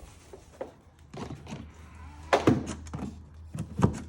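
Hollow plastic clunks and knocks of a Tesla mobile connector and its plug adapter being handled and pushed together. There are a few knocks about a second in and two louder clunks about two and a half and four seconds in, over a low steady hum.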